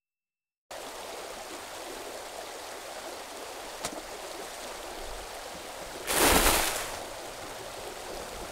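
Steady hiss of noise that cuts in abruptly, with a single click about four seconds in and a louder rushing swell lasting about a second near the end.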